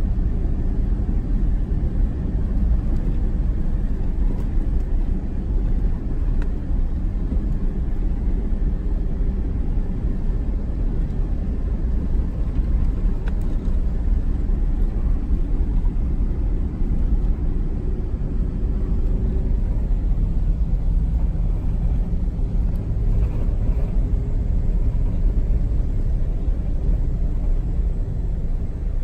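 Vehicle driving along at a steady pace: a continuous low rumble of engine and tyres, with a faint engine note that drifts slightly up and down in pitch.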